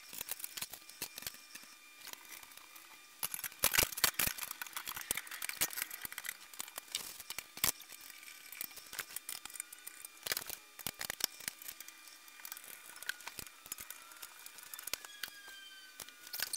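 Metal parts of a flat-pack IKEA Vittsjö shelf frame clicking, knocking and rattling as they are handled and screwed together, an irregular run of quick, sharp clicks with a few louder knocks.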